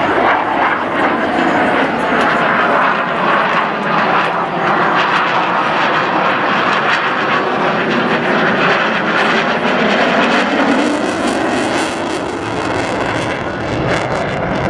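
Loud, steady engine noise of military aircraft flying past, from an F/A-18 jet flying with the PC-7 turboprop formation. It eases slightly near the end.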